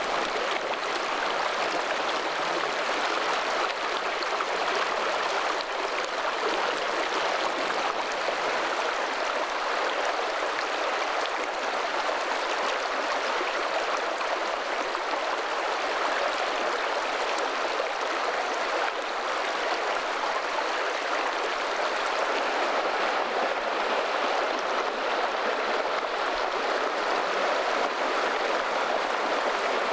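Water rushing steadily, as from a stream or small rapids.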